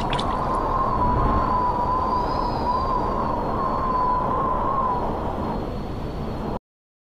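Steady wind noise with one held, high tone that wavers slightly laid over it; both cut off abruptly into silence about six and a half seconds in.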